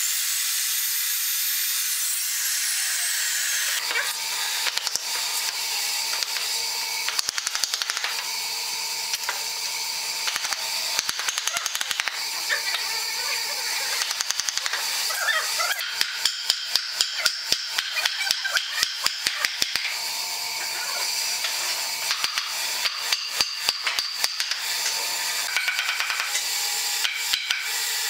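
Wooden mallet knocking pine frame rails into their lapped joints, in runs of quick light knocks about four a second. At the start a miter saw's blade winds down with a falling whine, and a steady hiss runs underneath.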